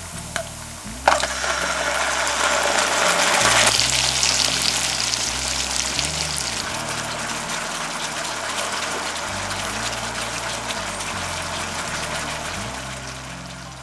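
Soy sauce and sugar sauce poured into a hot frying pan of Spam slices, hitting with a sudden loud sizzle about a second in that is strongest for the first few seconds. It then settles into a steady bubbling sizzle as the sauce reduces, easing off near the end. Soft background music with a bass line runs underneath.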